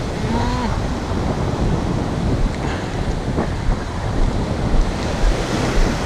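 Ocean surf breaking and washing up the beach in a steady wash, with wind buffeting the microphone in a low rumble.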